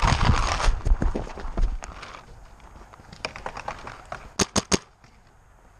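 Running footsteps on grass, loud for the first two seconds as the player sprints to a bunker, then three quick paintball marker shots about four and a half seconds in.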